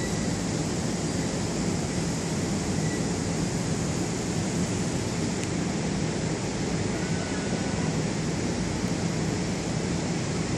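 Steady low rumble and hiss on an underground station platform, with no distinct knocks or horns. A diesel-electric locomotive running light is approaching from far down the track.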